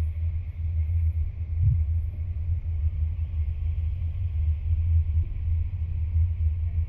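Steady low rumble of a car driving slowly along a city street: engine and road noise, with a faint hiss above it.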